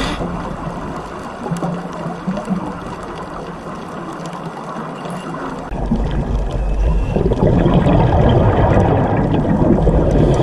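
Underwater water noise picked up by a diving camera, with the gurgle of a scuba diver's exhaled bubbles. About six seconds in, a louder, deeper rumble sets in and holds.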